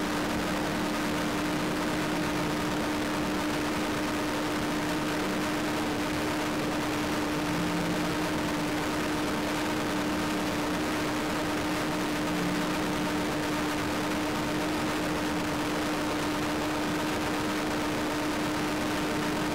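Steady mechanical hum with one constant tone, over an even hiss.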